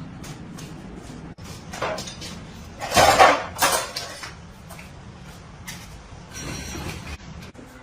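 Metal parts knocking and clattering, with a loud cluster of clanks about three seconds in and a short scraping rasp near the end.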